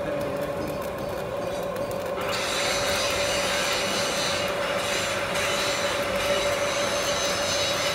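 Steel being worked on a machine tool: a steady metallic whine over a harsh scraping hiss. The hiss gets brighter and shriller about two seconds in.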